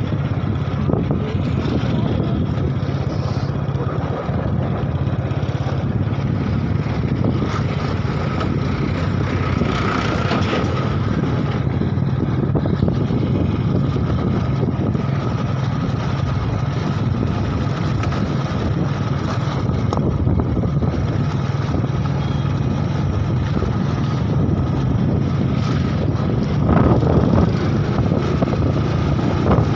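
Motorbike engine running at a steady cruising speed, heard from on the bike, with wind rushing over the microphone. A constant low hum with a faint steady whine above it.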